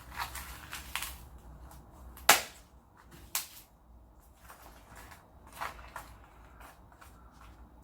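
Several short, sharp clicks spread through a few seconds, the loudest about two seconds in.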